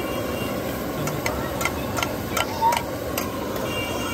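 A block of butter melting in a hot steel frying pan over a gas burner, against a steady noisy background. About seven sharp clicks or pops are scattered through the middle.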